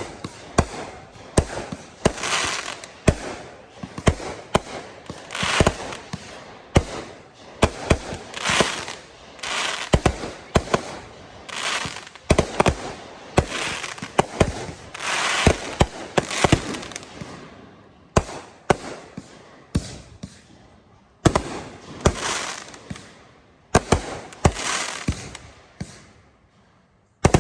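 Aerial fireworks display of 500-gram cakes and artillery shells: a rapid, irregular string of sharp bangs, many followed by about a second of crackling hiss. Two brief lulls come in the last third before the bangs resume.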